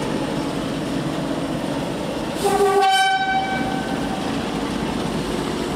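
Train horn sounded about halfway in: a short low note, then a longer higher note held for about a second and a half, over the steady rumble of trains moving through the station.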